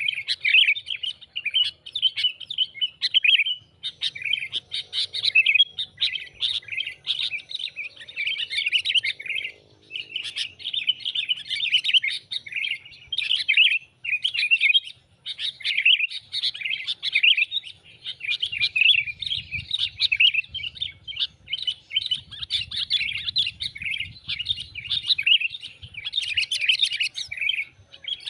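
Sooty-headed bulbul (kutilang) chattering: a dense, unbroken run of quick, busy chirps with a few short pauses, the excited call used as a lure to draw in wild bulbuls.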